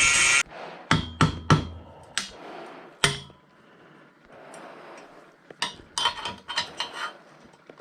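A loud steady rushing noise cuts off just after the start, then steel parts are knocked and tapped. Three sharp metal knocks come about a second in, single knocks follow near two and three seconds, and a quick run of clinks and clanks comes near the end.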